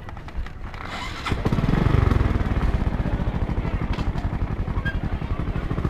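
Small automatic motor scooter engine started about a second in, then running at a steady idle with an even, quick putter.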